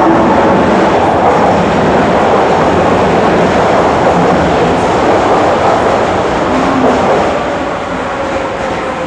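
Osaka Metro Nagahori Tsurumi-ryokuchi Line linear-motor subway train pulling into the station, a loud, steady rush that eases off after about seven seconds as the train slows alongside the platform, with a faint falling tone near the end.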